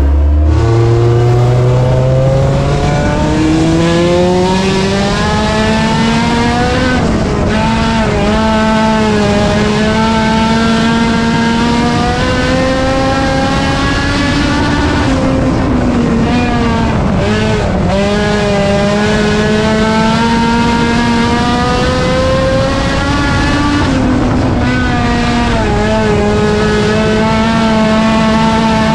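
A front-wheel-drive Honda race car engine running hard at high revs. It climbs in pitch over the first few seconds, then holds high with three brief dips in pitch, as the throttle is lifted for the turns and picked up again.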